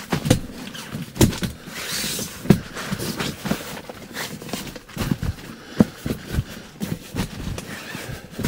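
HABUTWAY folding camping cot pressed down by hand: irregular clicks and knocks from its metal frame and leg joints, with fabric rustling, as the legs are pushed to lock but do not catch.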